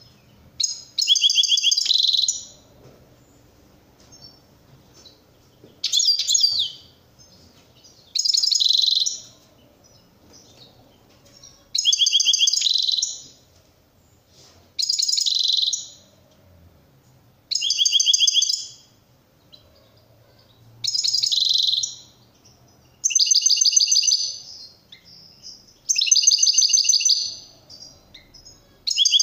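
Caged European goldfinch singing the song style Turkish keepers call 'şakşaklı': a string of high, fast, twittering phrases of about a second each, repeated every two to three seconds, about ten times.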